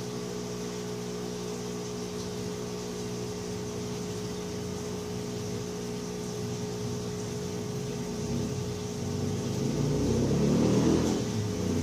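Hot-air rework station handpiece blowing hot air onto a phone's back cover to soften its adhesive, a steady fan whir and hum, swelling louder with a rumble near the end.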